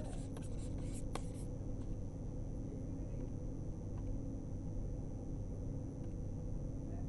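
Pen stylus tapping and scratching on a drawing tablet as handwriting is written, a few light ticks in the first second and a half. After that there is only a steady low room hum.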